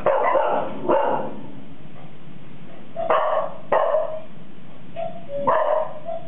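Golden retriever puppies barking in about five sharp barks. Between the barks an artificial cuckoo chime sounds its two-note call, a higher note then a lower one, which the puppies are barking at.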